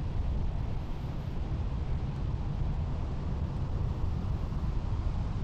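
Wind buffeting the microphone: a steady, gusting low rumble with a hiss over it.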